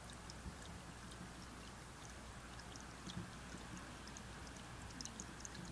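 Faint trickle of a small creek: a soft steady wash of running water with many tiny quick droplet ticks.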